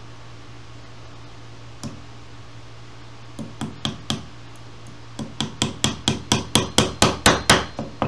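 Small hammer driving upholstery tacks through jute seat webbing into an oak chair rail. There is one tap about two seconds in and a few light taps around the middle. Then comes a quick even run of about a dozen strikes, about four a second, growing louder toward the end as the tacks are driven home.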